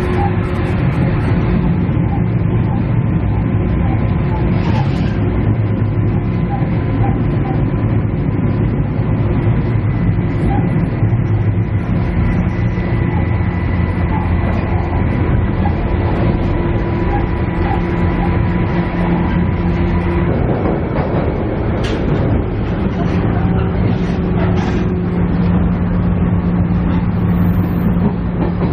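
Cabin sound of a KiHa E130 diesel railcar running: a steady drone from the diesel engine and drive, with the wheels on the rails. About twenty seconds in, the engine note changes, and a few short clicks follow.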